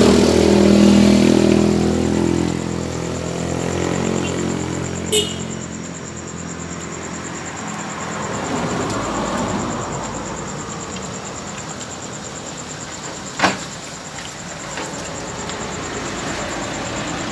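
A motor vehicle's engine passes close by, loudest at the start and fading over the first few seconds, leaving steady street traffic noise. Two sharp clicks come about five seconds and about thirteen seconds in.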